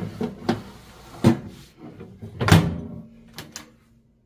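Metal rack and tray clattering into a countertop air fryer oven, then the oven door shutting with a loud clack about two and a half seconds in, with a brief ring after it. A few lighter clicks follow as the control knobs are turned.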